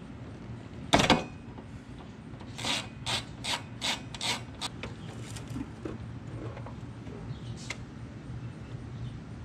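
Windshield wiper arm of a Honda CRX being worked loose at its pivot: a sharp knock about a second in, then a run of six or seven short scraping strokes, about two a second, and a few fainter scrapes as the arm comes off.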